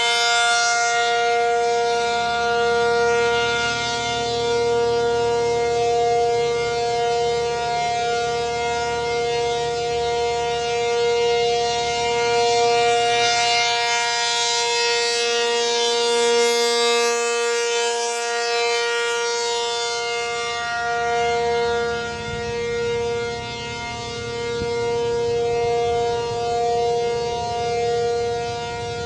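American Signal Corporation T-135 dual-tone outdoor warning siren sounding its steady Alert signal: two pitches held together in a chord, swelling and fading gently in loudness as the siren rotates.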